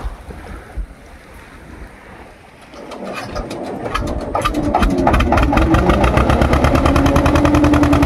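Boat engine starting about three seconds in, its firing beat building quickly into a loud, steady, rapid run.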